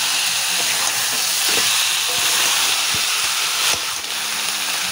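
Marinated mutton pieces and fried potatoes sizzling in hot spiced oil in a kadai, a steady frying hiss, with a few knocks of the spatula against the pan.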